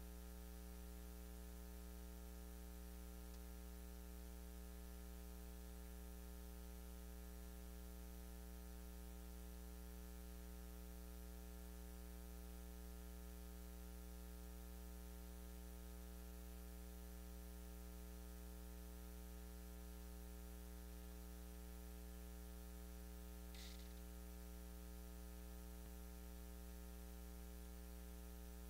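Steady electrical mains hum, a low buzz with many even overtones over faint hiss, in an otherwise quiet audio feed. There is one brief faint high sound about 24 seconds in.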